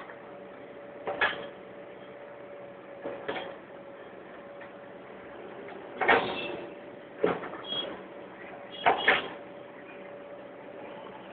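Road construction work: a steady machine hum with short, sharp knocks and clanks at irregular intervals, the loudest about six and nine seconds in.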